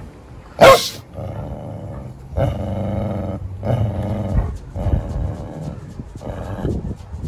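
Great Pyrenees dogs play-wrestling: one short, loud bark about half a second in, then four growling bouts of about half a second to a second each, the playful growls of mouth-wrestling rather than a real fight.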